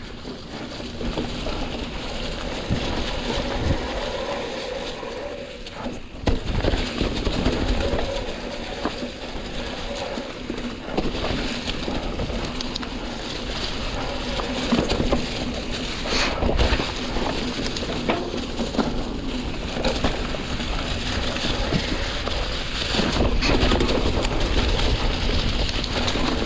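Mountain bike riding along a dirt trail covered in dry fallen leaves: the tyres rustle and crunch through the leaves, and the bike knocks and rattles over bumps, with wind noise on the microphone.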